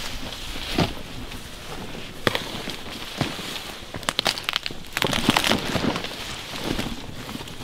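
A granola bar's wrapper crinkling and crackling as it is handled: scattered sharp crackles, with a longer stretch of rustling about five seconds in.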